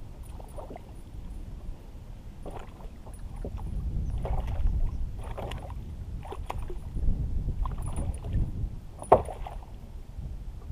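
Water sloshing and splashing with scattered clicks and knocks on a kayak while a hooked bass is fought alongside and brought in. The sharpest knock comes near the end.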